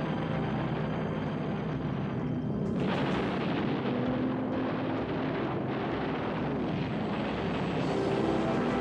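Propeller aircraft engines droning steadily. The sound grows brighter and louder about three seconds in, as if a plane is passing close.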